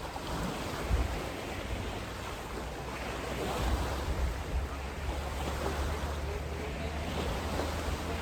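Wind buffeting the microphone over lake water lapping at the shore, with a single bump about a second in and the wind rumble growing stronger about halfway through.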